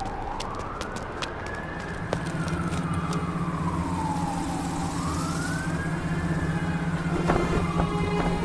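Emergency-vehicle siren wailing, its pitch rising and falling slowly about twice, over a steady low hum.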